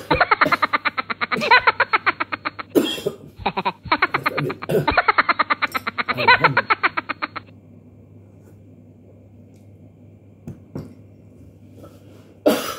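A comic sound effect edited into the soundtrack, a rapidly pulsing pitched sound played twice for about four seconds each. After a quiet stretch a cough comes near the end.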